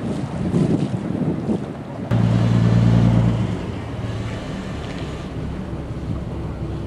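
Boat engine running steadily under wind noise on the microphone. A louder low engine hum starts abruptly about two seconds in and eases after a second and a half.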